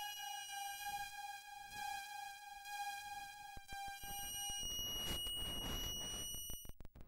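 Circuit-bent electronic toy sounds: a steady, buzzy electronic tone with a few clicks. About four and a half seconds in it switches to a higher tone over a hiss, then cuts off shortly before the end.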